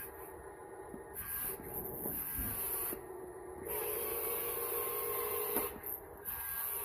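Small electric motors and plastic gearing of a toy RC forklift whining in spurts as it is driven. The whine starts about a second in, pauses briefly, then comes back louder, with a few light clicks.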